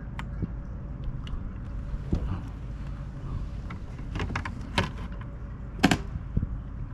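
Steady low rumble of wind and water, with scattered sharp clicks and knocks of rod, reel and gear being handled in a kayak. The knocks bunch together past the middle and the loudest comes near the end.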